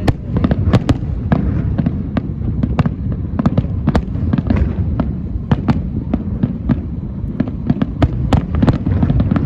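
Fireworks display: a rapid, irregular run of sharp cracks and bangs, several a second, over a continuous low rumble of bursting shells.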